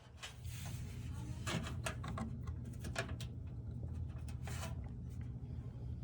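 Faint scrapes and light clicks of a motherboard being handled and lined up inside a PC case, over a steady low hum.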